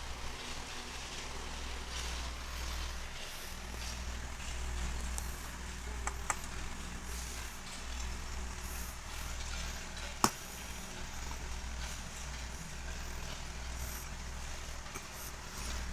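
60-inch Khind CF60 industrial ceiling fan running, its air movement giving a steady rushing noise with an uneven low rumble. Two sharp clicks come through, about 6 seconds in and, louder, about 10 seconds in.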